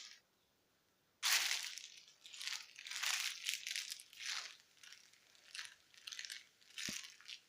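A series of crinkling, crunching handling noises, starting about a second in and coming in about eight bursts, the first the loudest.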